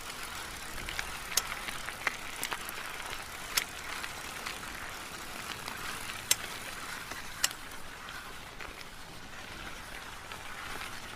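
Bicycle being ridden: a steady rolling noise of tyres and drivetrain, broken by about six sharp, irregular clicks or rattles.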